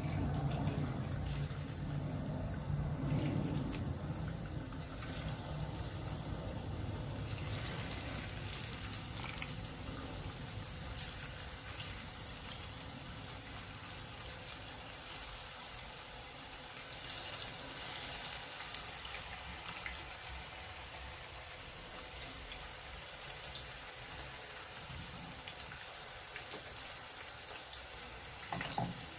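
Marinated anchovies deep-frying in hot oil in a pan: a steady sizzling hiss with scattered crackles.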